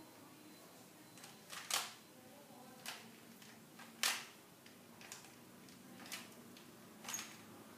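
Faint clicks of a Rubik's cube's faces being turned by hand, single sharp clicks roughly once a second, the loudest about four seconds in.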